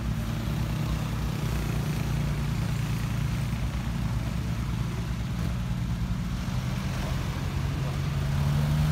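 Diesel truck engines running steadily at low revs, a deep even drone that grows a little louder near the end.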